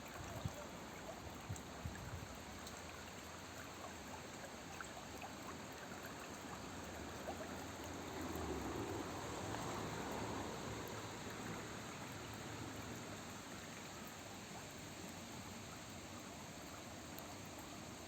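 A small stream flowing and trickling in a steady rush, swelling a little louder about halfway through. A few soft knocks come in the first two seconds.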